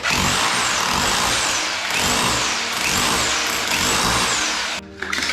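Electric power tool running loudly under load, its high whine rising and falling about once a second as it bites and eases off, then cutting off near the end.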